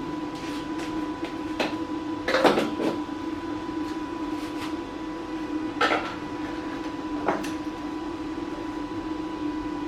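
A few metal clanks and knocks, the loudest a short rattling cluster about two and a half seconds in, over a steady mechanical hum.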